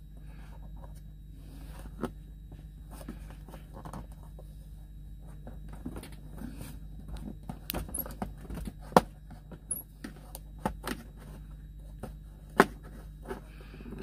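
Plastic clicking, scraping and knocking as a USB charger socket is pushed and twisted into a dash-panel opening that is too tight for it, over a steady low hum. Two sharper knocks stand out in the second half.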